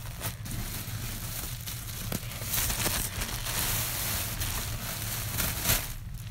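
Close rustling and crinkling right at the microphone, with scattered sharp clicks; it stops just before the end.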